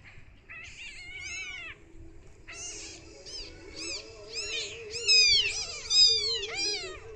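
A newborn kitten mewing over and over in thin, high cries that rise and fall, the loudest about five to six seconds in.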